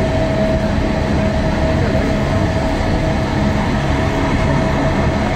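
Gornergrat Bahn rack-railway train running: a steady low rumble with one steady high tone over it.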